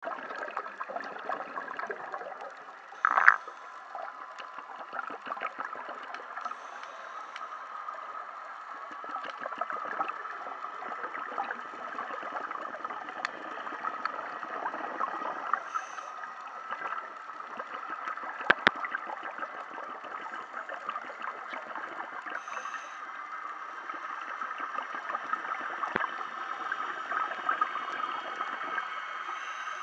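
Underwater ambient noise heard through a submerged camera: a steady hiss with a constant fine crackle. A louder gurgling burst comes about three seconds in, and two sharp clicks come just past the middle.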